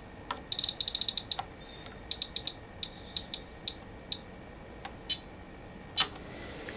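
Clicking of a Tenma bench power supply's adjustment knob as it is turned up: a quick run of clicks about half a second in, then scattered single clicks.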